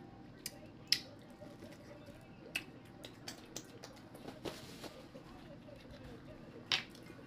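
Close-up eating sounds: scattered sharp wet clicks and smacks of chewing corn on the cob, with a short paper-napkin rustle about four and a half seconds in and a louder click near the end, over a low steady background hum.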